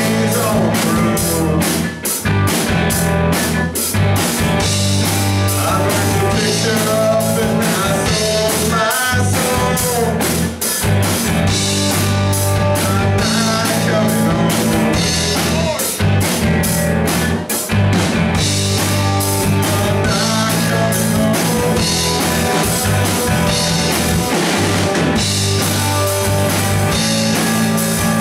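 Live rock band playing: electric guitars over a drum kit keeping a steady beat, with sustained low notes underneath.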